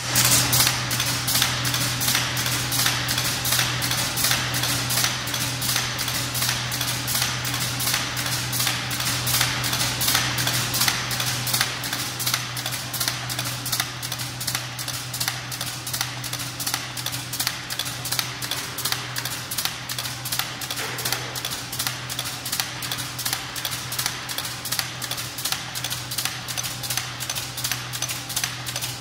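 F/T brad nail forming machine running, its two hydraulic cylinders working the forming press in a rapid, even clatter of metallic strikes, several a second, over a steady low hum.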